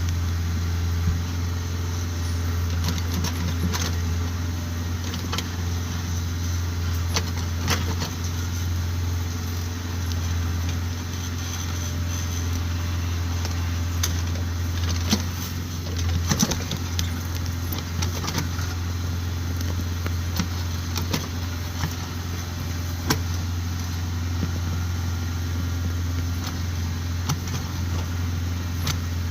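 Kubota tractor's diesel engine running steadily, with scattered metallic clinks and knocks over it.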